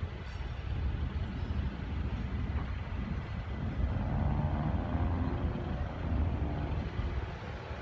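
Steady low rumble of distant heavy diesel rail-yard equipment, with a faint whine joining in about four seconds in.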